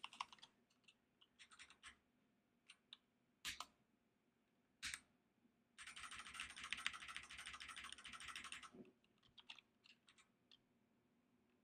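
Faint computer keyboard typing: scattered single keystrokes, then a quick run of keystrokes lasting about three seconds, starting around six seconds in.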